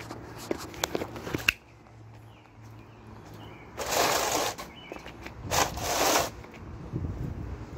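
Handling noise from a large flattened cardboard sheet on asphalt: a few clicks and taps in the first second and a half, then two rustling, scuffing rushes about four and six seconds in.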